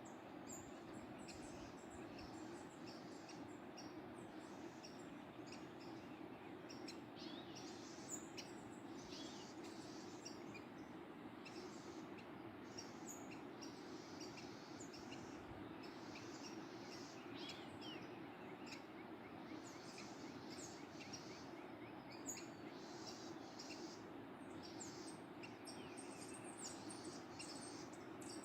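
Steady rush of a waterfall with small birds chirping on and off over it, high and brief.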